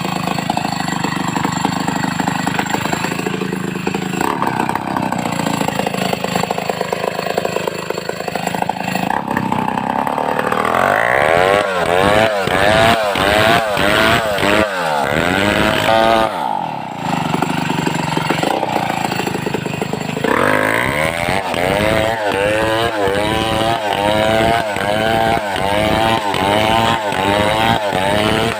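Two-stroke chainsaw running at high revs, steadier for the first part, then pulsing rhythmically about once or twice a second as it works through the wood, easing briefly around the middle before the pulsing picks up again.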